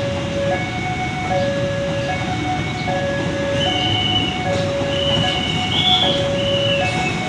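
Level-crossing warning alarm sounding an electronic two-tone chime that alternates between a lower and a higher note about every three-quarters of a second. Under it is the steady rumble of passenger coaches rolling past over the crossing.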